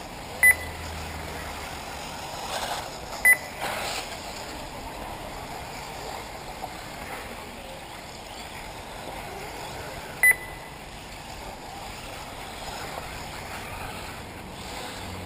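Three short, high electronic beeps from an RC race's lap-timing system, each marking a buggy crossing the timing loop, over steady outdoor background noise from the track.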